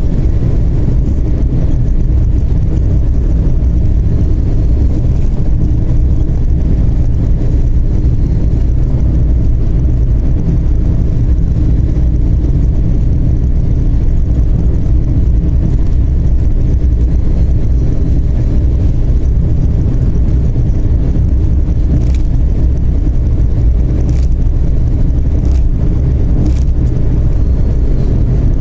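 TDI turbodiesel car cruising at steady highway speed, a loud, even drone of engine and road noise with a faint high turbo whistle coming and going. A few sharp clicks sound near the end.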